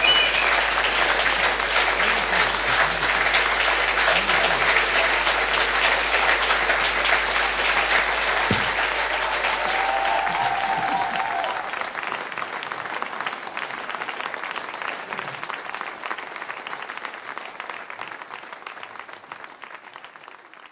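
Audience applauding, a dense steady clapping that thins and dies away over the second half.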